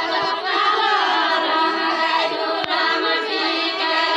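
A group of women singing a deuda folk song together, many voices in chorus with no instruments.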